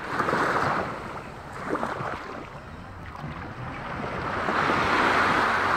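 Small sea waves washing and lapping, swelling louder near the start and again in the second half, with wind on the microphone.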